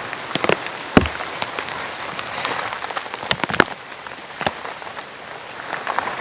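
Rain falling steadily, with large drops striking a surface at irregular moments; one hits hard about a second in.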